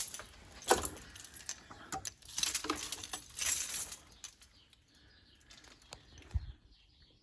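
Handling noise: sharp clicks and rattles, two short rustling bursts around two and a half and three and a half seconds in, and a dull thump near the end. No alarm sounder is heard.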